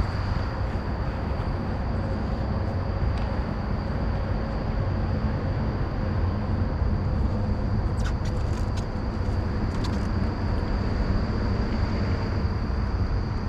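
Steady rushing noise heaviest in the low end, from wind and moving river water on the microphone of a kayak under way. A faint steady high whine runs through it, and a few light clicks come about eight seconds in.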